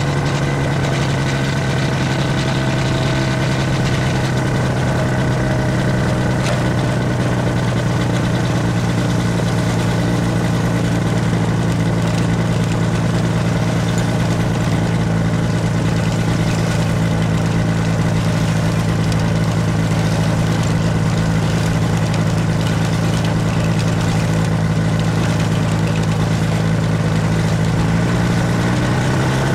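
Gyrocopter's engine and propeller running steadily at low power. Near the end the pitch begins to rise as it is throttled up.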